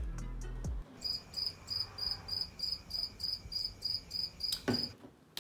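Cricket chirping sound effect, short even high-pitched chirps about three a second, the stock gag for an awkward silence. A brief louder noise comes near the end.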